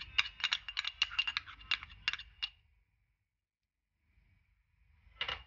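Metal spoon clinking and scraping against a small ceramic bowl while yogurt is spooned out: a quick run of sharp clinks that stops about two and a half seconds in, then one more clink near the end.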